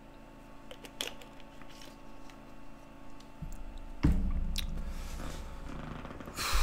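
Drinking from a plastic water bottle: small clicks and squishy mouth and swallowing sounds, then a sudden thump about four seconds in as the bottle is set down, and a short rush of noise near the end.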